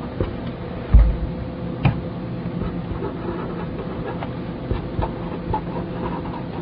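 Felt-tip marker writing on paper in short strokes, with faint scratches and ticks, over a steady electrical hum. Two soft low thumps come about a second in and just under two seconds in.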